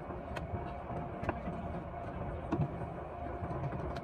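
Potter's jigger machine running with a steady motor hum and low rumble, its spindle turning the clay mould, with a few sharp clicks as the clay and forming arm are worked.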